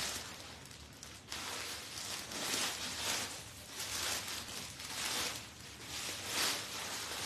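Cloth rustling as dupattas are rummaged through and handled, in a run of irregular short swells.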